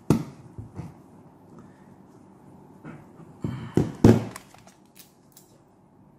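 Handling noises from a plastic wrist blood pressure monitor being picked up and moved by hand: a knock at the start, a cluster of thunks about three and a half to four seconds in (the loudest near four seconds), then a few light clicks.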